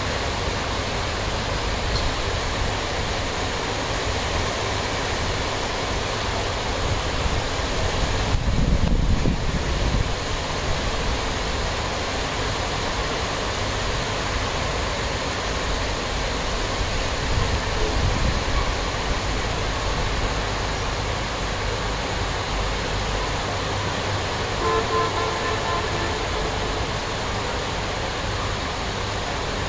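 Storm wind and rain: a steady rush of noise with heavy rumbling wind buffeting on the microphone, swelling into a stronger gust about eight seconds in.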